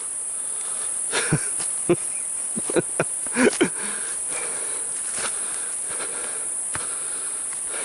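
Steady high-pitched insect chorus, like crickets, with a handful of crunchy footsteps on the forest floor, mostly in the first few seconds and one more near the end.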